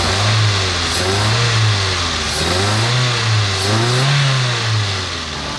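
Toyota Avanza four-cylinder engine blipped four times by hand at the throttle with one spark plug lead pulled, revving up and dropping back. It runs smooth with no knocking rattle, which the mechanic takes to point at incomplete combustion from a burnt cylinder head gasket leaking compression.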